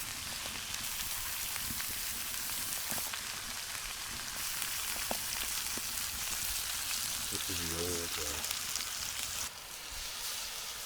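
Pork chops sizzling as they fry, a steady crackling hiss that eases about nine and a half seconds in.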